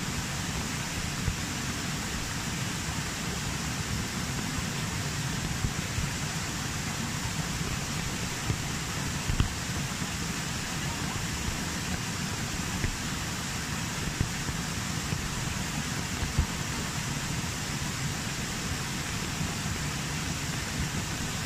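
Steady rushing of a small waterfall cascading down bare rock into a pool, with rain falling, and a few faint ticks.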